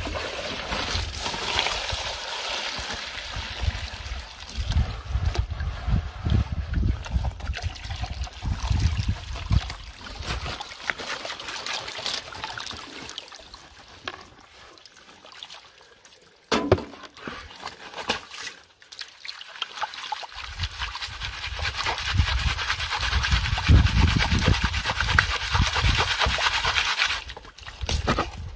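Sandy, muddy water poured from a plastic basin through a plastic sieve into a bowl, trickling and splashing. The pouring eases off about halfway through, with a single knock, then picks up again, louder, for most of the second half.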